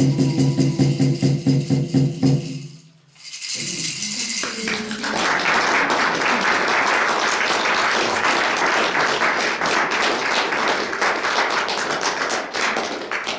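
A gourd drum beaten in a steady beat under a man's low chanting voice, both stopping about two and a half seconds in. After a second of silence the audience bursts into applause that lasts about nine seconds.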